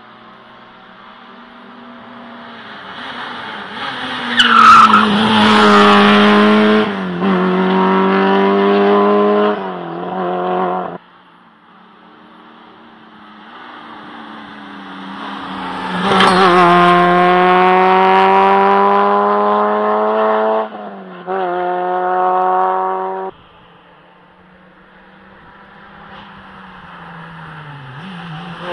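Two rally cars come through one after the other, each engine at high revs, its pitch stepping up and down with gear changes, then cutting off abruptly. A third car is approaching near the end.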